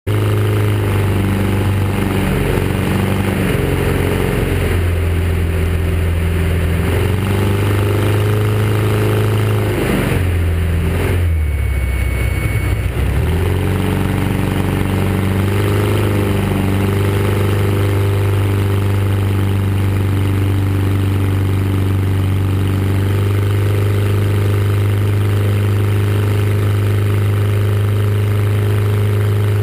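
Fournier light aircraft's piston engine and propeller running steadily, heard from inside the cockpit. About ten seconds in, the engine note drops and then climbs back up to a steady drone.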